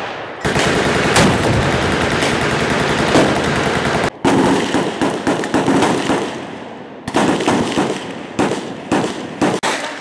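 Automatic gunfire from machine guns on a firing line: rapid, overlapping bursts of sharp shots. It breaks off sharply about four seconds in and again about seven seconds in, then resumes.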